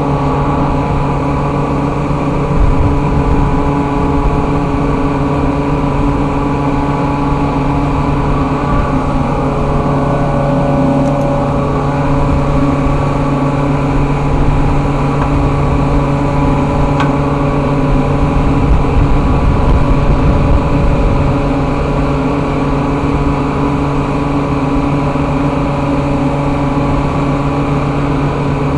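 Air compressor running steadily, its electric motor and cooling fan giving an even, loud hum with a strong low tone.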